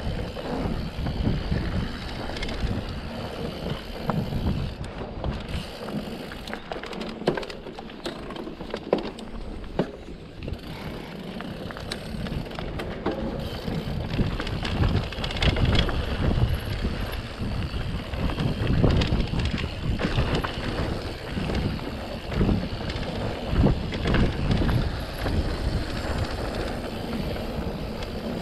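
Mountain bike rolling down a dirt singletrack, heard from the bike itself: tyre noise on the dirt with many small knocks and rattles from the bike over bumps, and wind buffeting the microphone. The low rumble eases for several seconds early on, then builds again.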